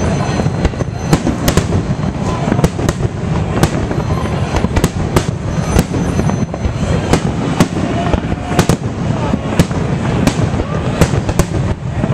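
Fireworks display with aerial shells bursting in quick succession: sharp bangs about two a second over a continuous low rumble of booms.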